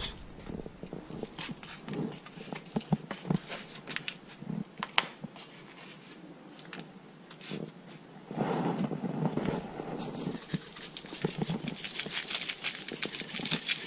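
Hands turning raw fish steaks over on a foam plate, with small knocks and handling noise and a louder rustle about eight seconds in. Near the end a seasoning shaker rattles as steak seasoning is shaken over the fish.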